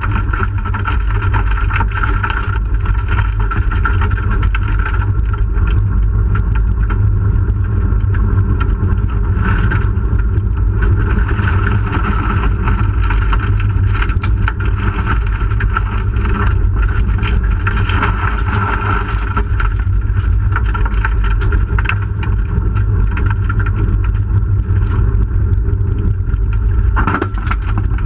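1997 Hyundai Excel rally car's SOHC four-cylinder engine running hard at speed, heard from inside the cabin, over a steady low rumble of tyres on a dirt road with scattered knocks from the gravel and body.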